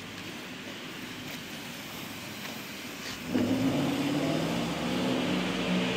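Porsche Panamera Turbo's twin-turbo V8 in an underground garage: a low steady running noise, then about three seconds in the engine note jumps up sharply as the car accelerates up the exit ramp, holding loud before easing slightly as it pulls away.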